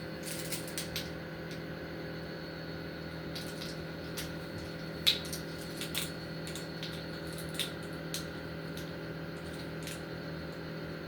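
Scattered light clicks and taps as a measuring spoon scoops baking powder for dumpling batter, the sharpest tap about five seconds in, over a steady hum.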